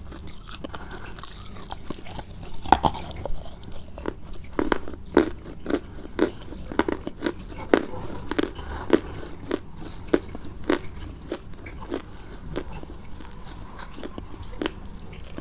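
Crunchy food being bitten and chewed close to the microphone: crisp crunches that settle into a steady rhythm of about two a second through the middle, sparser near the start and end.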